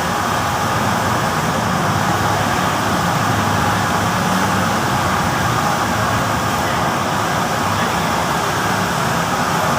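Steady, even rushing noise, like road traffic, with no distinct events standing out.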